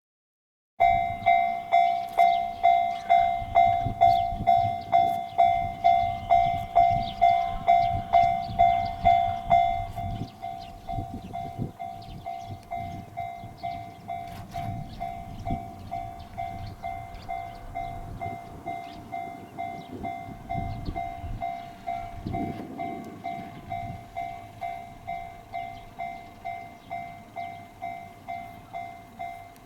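Japanese railway level-crossing warning bell clanging about twice a second in an even, ringing tone, which drops noticeably in level about ten seconds in. A low rumble runs underneath.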